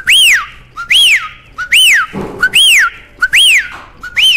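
A loud whistled note repeated about every 0.8 seconds, six times. Each is a short low chirp followed by a quick rise and fall in pitch.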